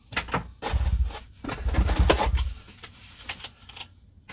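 Hands handling fitness accessories and straps in a foam-lined box. There are two stretches of rubbing and rustling with low thumps in the first half, then a few light clicks.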